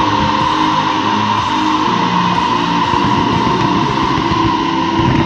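Loud music with guitar, over a steady hiss of noise.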